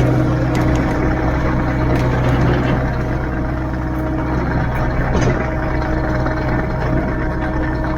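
Kubota KX057-4 mini excavator's diesel engine running steadily, with a few faint knocks.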